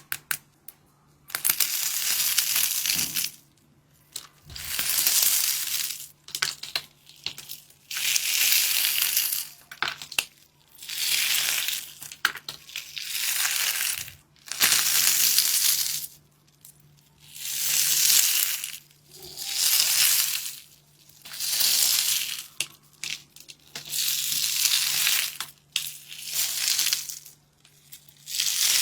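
Water beads being crushed over and over: about a dozen noisy, crunching bursts, roughly one every two seconds, each lasting about a second, with short quiet gaps between.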